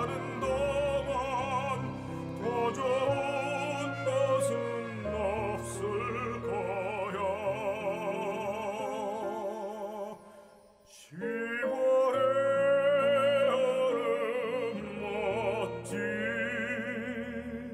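Operatic singing with wide vibrato over orchestral accompaniment. The music dips briefly about ten seconds in, comes back with a rising vocal swoop, and begins to fade near the end.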